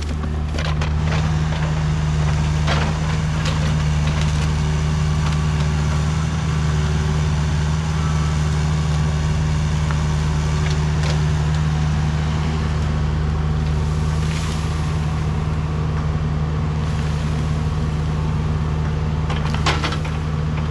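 Diesel engine of a Kubota machine (mini excavator or tractor-loader-backhoe) running steadily under work, with a few faint knocks at intervals.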